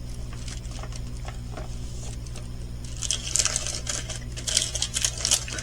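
Small plastic bags of pearl diamond-painting drills being handled and sorted: a few light clicks, then crinkly plastic rustling through the second half.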